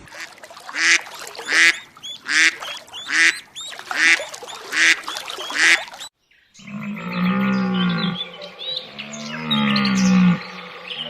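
A duck quacking about seven times, evenly spaced, followed after a brief gap by a different, lower, drawn-out animal call.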